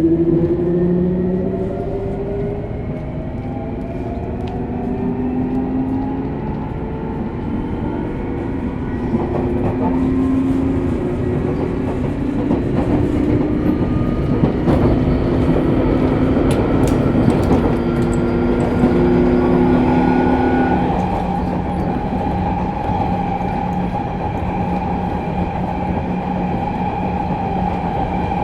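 Interior running sound of a Sotetsu New 7000 series electric train: the whine of its Hitachi GTO inverter and traction motors over wheel and track rumble. The car's traction motors are known for an unusual motor noise. The pitched tones climb at the start, then hold steady, and a new steady higher tone comes in about two-thirds of the way through, with a few sharp clicks from the rails around the middle.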